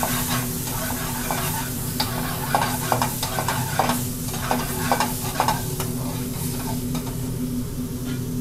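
Metal spoon stirring and scraping potatoes through curry sauce in a sizzling aluminium frying pan on high heat, with a run of clinks and scrapes against the pan in the middle. A steady low hum runs underneath.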